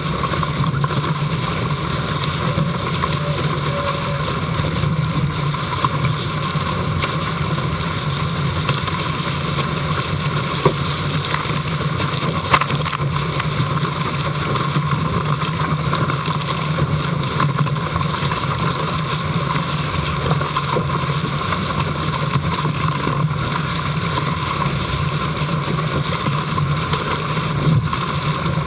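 Steady rush of wind on the microphone and water streaming and splashing past the hull of a Dart 18 catamaran sailing at speed, with a few sharp knocks, the sharpest about twelve and a half seconds in.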